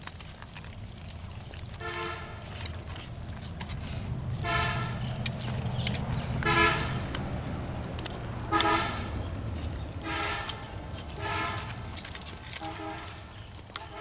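Short horn-like toots at one fixed pitch, about seven of them at roughly two-second intervals, over a steady low rumble.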